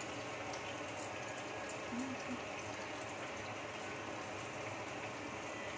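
Tomato purée with crushed ginger cooking in a kadai over a gas flame: a steady sizzle with a few faint crackles.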